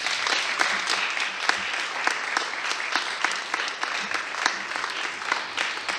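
Audience applauding, the clapping thinning a little near the end.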